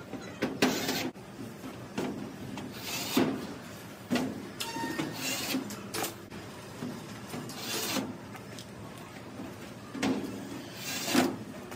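Hand work on a door lock: a series of short scraping and rubbing noises, each about half a second long, coming irregularly every one to three seconds.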